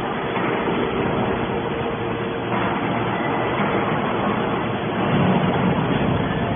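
Hydraulic aluminum can baler running: a steady machine drone with a faint constant whine, growing a little louder about five seconds in.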